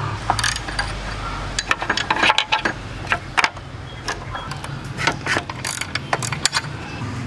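Ratchet wrench clicking in short, irregular runs as 10 mm bolts are loosened, with sharp metal ticks.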